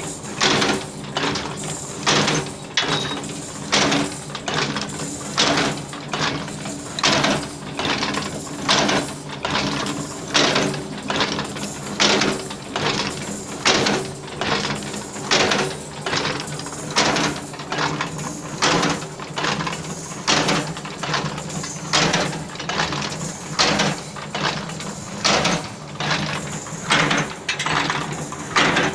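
Automatic wire-bending machine forming tea-strainer wire, running in a steady cycle: a clanking stroke of its forming mechanism about once a second over the continuous hum of its drive.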